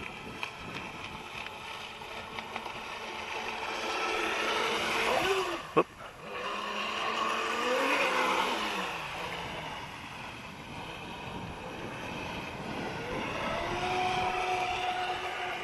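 Radio-controlled jet-drive boat's motor whining over a rushing hiss, its pitch rising and falling as the throttle is opened and eased off. A single sharp knock, the loudest sound, comes about six seconds in, and near the end the whine climbs and holds steady.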